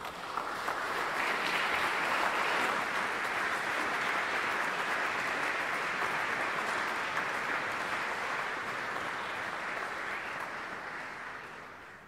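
A large audience applauding. The clapping builds within the first couple of seconds, holds steady, and eases off slightly near the end.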